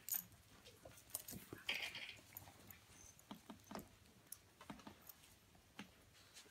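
Faint, scattered pattering and scuffling of miniature schnauzer puppies and their mother scrambling and tussling on pee pads, with a slightly louder scuffle about two seconds in.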